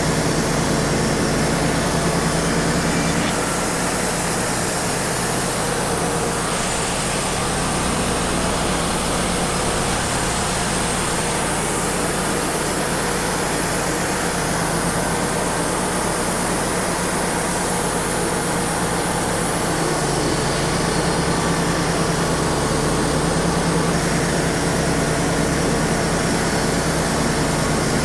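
Wood-Mizer LT35 portable sawmill running, its engine and band blade sawing a pin oak log, with the dust collector blower going. The steady engine hum weakens a few seconds in and comes back strongly about two-thirds of the way through.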